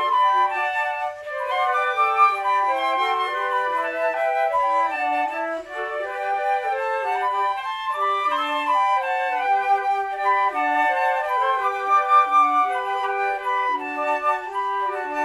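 Four silver concert flutes, one player multitracked, playing a piece together in harmony, several notes sounding at once and moving from note to note at an even pace.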